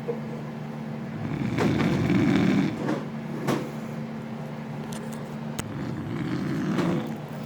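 A man snoring loudly: two long, rasping snores about four and a half seconds apart, over a steady low hum.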